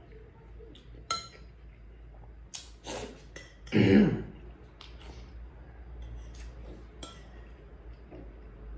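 Spoon clinking against a soup bowl in a few separate light clinks, with one louder half-second noise about four seconds in.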